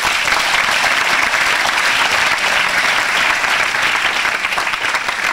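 Audience applauding steadily, dense clapping from a hall full of people.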